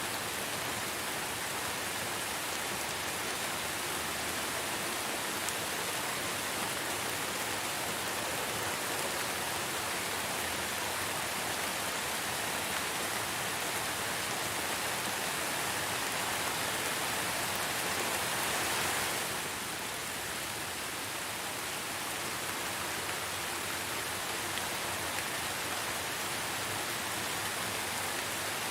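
Steady rainfall: a dense, even hiss of rain. It swells a little about two-thirds of the way through, then eases slightly.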